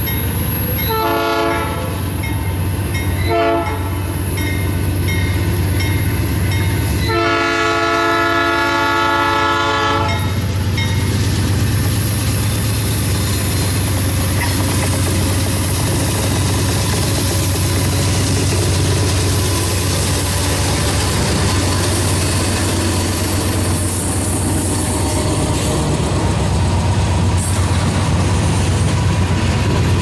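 Air horn of a GE C44-9W diesel locomotive: two short blasts in the first few seconds, then one long blast of about three seconds. The locomotive's engine and wheels then run past loudly, followed by a steady rumble and clickety-clack of oil tank cars rolling by.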